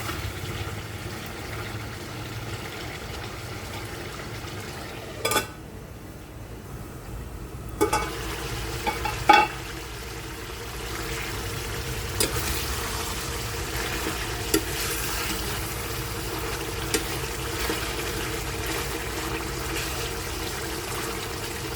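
Pork curry sizzling steadily in a pan while being cooked, with a few sharp knocks scattered through.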